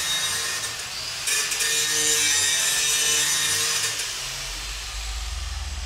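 A hand tool scraping at a workbench, a steady rasping sound loudest from about one to four seconds in, with a low hum coming in near the end.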